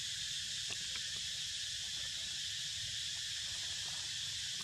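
Steady high-pitched drone of a chorus of insects, unbroken throughout, over a low rumble.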